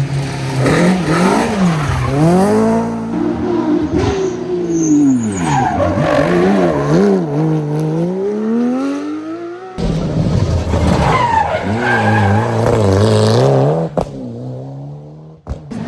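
Rally car engines at high revs, the pitch climbing and dropping again and again through gear changes and lifts, with tyre skidding noise. The sound cuts off abruptly about ten seconds in and resumes at once.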